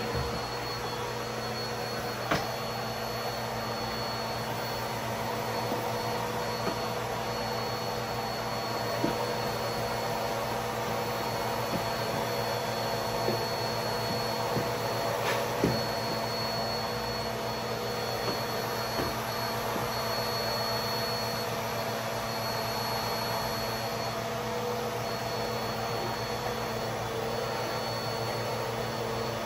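Upright vacuum cleaner running steadily as it sucks up dog hair and dirt from the floor, with a few sharp clicks along the way.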